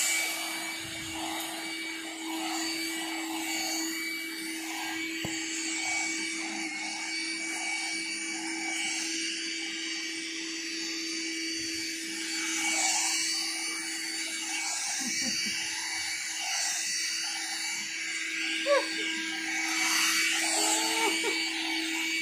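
Small electric pet grooming hair dryer running steadily as it is passed over a dog's coat: a constant motor whine over a rush of blown air.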